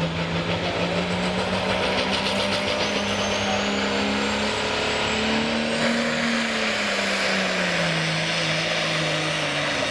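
Turbocharged diesel engine of a hot stock pulling tractor running at the starting line. About halfway through the engine note rises, then sinks lower again, while a high whistle climbs over a few seconds.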